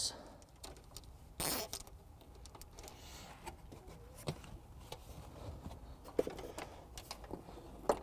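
Hands fastening trailer wiring to a wiring loom with nylon zip ties: quiet rustling and a few small clicks, with one short louder rasp about a second and a half in.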